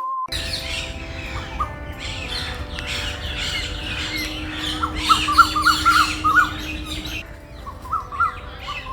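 Several birds calling at once: a busy chatter of high chirps, with one bird repeating quick, short rising notes from about halfway through.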